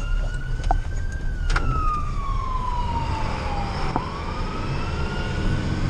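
Fire engine siren on a slow wail: it rises, falls over about three seconds, and rises again near the end, over the low rumble of the truck's engine. A couple of short clicks sound in the first two seconds.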